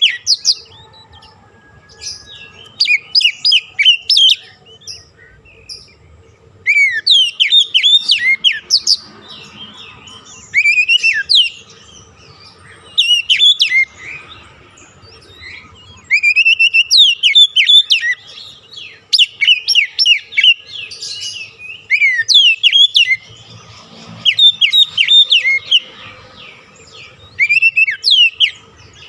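Songbird singing in rapid chattering phrases of quick, high, downward-sweeping notes, each burst lasting a second or two and separated by short pauses.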